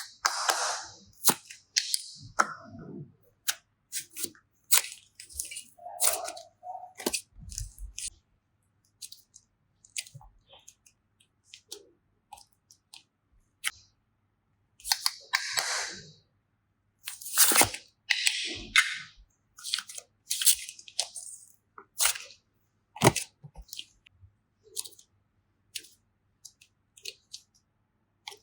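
Hands handling small plastic bags and containers of slime and clay: crinkling plastic and sharp clicks and taps in short, irregular bursts with brief pauses between them.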